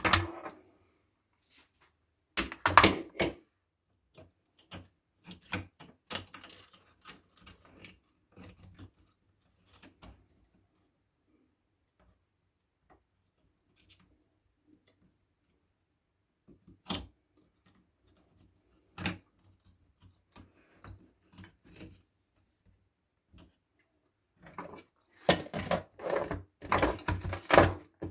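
Parts of a Silvercrest electric kettle handled during a repair: intermittent clicks, knocks and small rattles. A short clatter comes about three seconds in, and a longer run of rapid clatter comes near the end.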